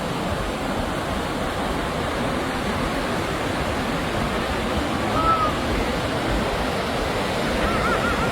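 Sea surf breaking and rushing steadily on the shore in monsoon waves, with a few faint, brief high-pitched calls about five seconds in and near the end.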